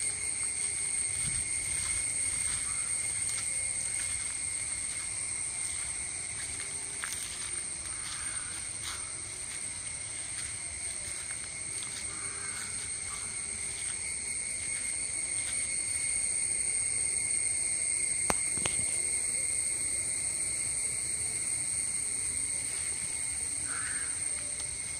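Steady, high-pitched insect chorus, a continuous chirring that holds unbroken over a soft background hiss. A single brief knock comes about three-quarters of the way through.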